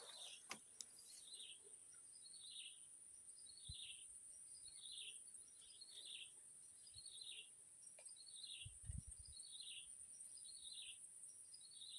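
Faint bird calling: a short, high, falling chirp repeated evenly about every three-quarters of a second, over a steady high-pitched hiss, with a couple of faint low knocks.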